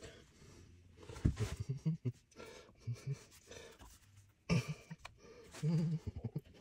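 Heavy rotary table being shifted and pressed down on a milling machine's table: irregular metal knocks and clunks. Short grunts and heavy breathing from the effort come in between.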